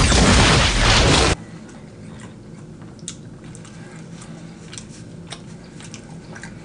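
An explosion sound effect: a loud blast that cuts off abruptly about a second and a half in. Then quiet, with scattered soft clicks and smacks from fingers picking at food and eating.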